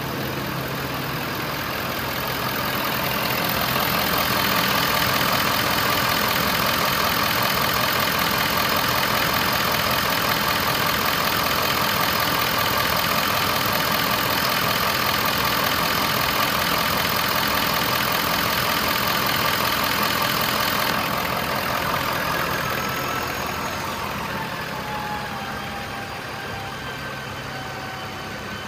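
Ford F-550's 6.7-litre V8 diesel engine idling steadily, getting louder about four seconds in. From about twenty-one seconds in it turns quieter and thinner, and faint whines gliding down in pitch come in near the end.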